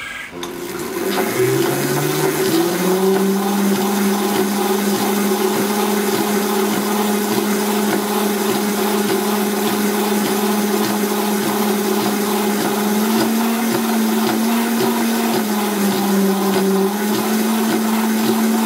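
Third-horsepower electric scooter motor driving a homemade potter's wheel platter through a chain. It starts up and its whine rises in pitch over the first couple of seconds as the wheel comes up to speed. It then runs steadily, its pitch stepping up slightly a couple of times.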